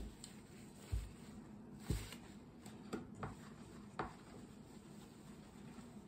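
A paper towel wiping marker off a dry-erase board, with a run of soft knocks about once a second through the first four seconds as the wiping hand bumps the board.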